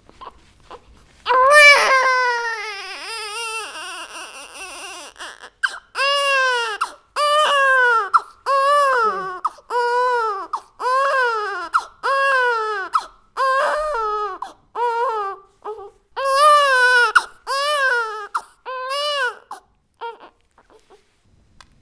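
A baby crying hard. After a moment's quiet comes one long wail that falls in pitch, then a run of short cries about one a second, each rising and falling, that stops about two seconds before the end.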